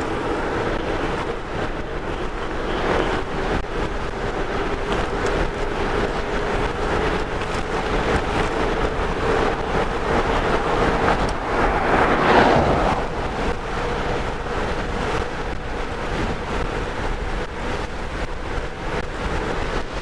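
Wind rushing over the microphone on an e-bike accelerating at speed, with a faint steady whine from the Bafang BBS02 mid-drive motor pulling at maximum assist, creeping slightly up in pitch. The rush swells briefly about twelve seconds in.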